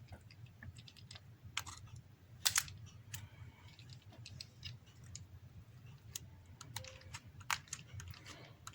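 Small, irregular clicks and taps of fingers and a tool pressing flex-cable connectors onto an iPhone X's board, the loudest tap about two and a half seconds in, over a low steady hum.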